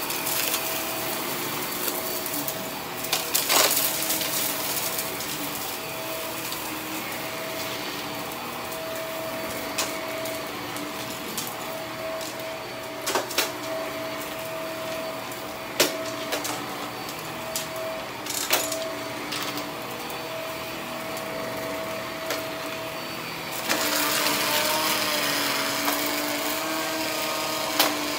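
HART cordless stick vacuum running on carpet, with a steady motor whine and a few sharp clicks and rattles as bits of debris are sucked up. It grows louder late on as the vacuum comes closer.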